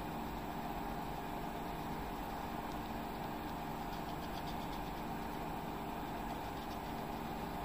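Steady, even machine-like hum with several constant tones, with faint scratching of a coloured pencil on paper in the middle.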